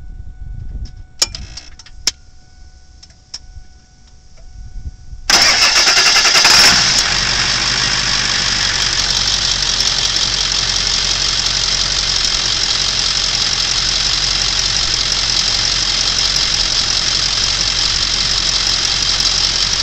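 Ford F-350 pickup engine: a few sharp clicks with a faint steady tone, then the engine cranks and catches about five seconds in and settles into a steady idle.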